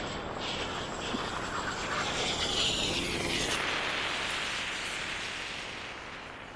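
Twin-turboprop airliner passing low overhead, its engine and propeller noise swelling to a peak about halfway through and then fading away.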